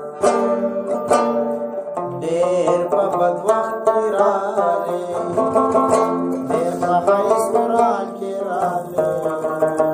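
Background music led by plucked string instruments, with a busy melody over a steady accompaniment.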